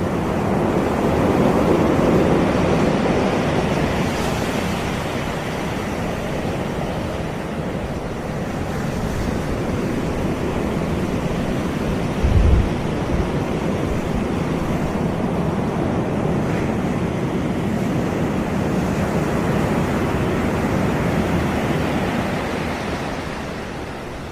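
Sea waves breaking and washing onto a beach: a steady rush of surf that swells and eases. About halfway through there is a brief low thump.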